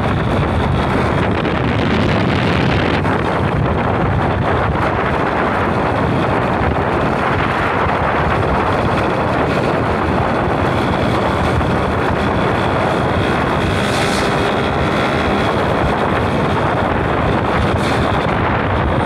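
Steady rush of wind on the microphone of a motorcycle riding at road speed, with vehicle engine and road noise underneath.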